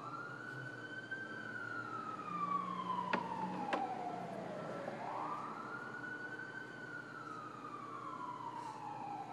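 Emergency vehicle siren wailing: each cycle rises quickly in pitch, then falls slowly over about four seconds, twice over. Two light clicks sound about three seconds in.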